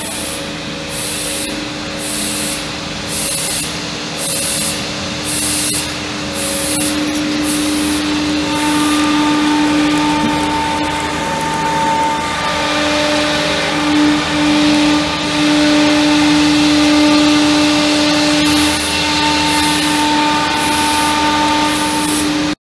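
SCM Morbidelli X200 Cell CNC machining centre running: a steady whine from the spindle head over a hissing noise, with a second, higher tone joining about a third of the way in. A quick pulsing hiss comes about twice a second in the first third and again near the end.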